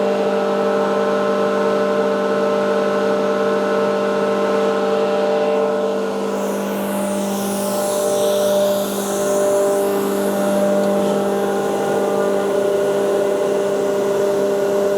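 Eaton 75 HP air-cooled rotary screw air compressor running under test with a steady hum. About six seconds in a high-pitched hiss of rushing air rises over the hum and fades out after about four seconds.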